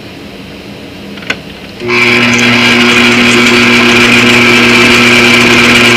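Electric stand mixer switched on: a single click, then about two seconds in the motor starts and runs steadily with a high whine as the flat beater mixes dry flour and sugar in the steel bowl.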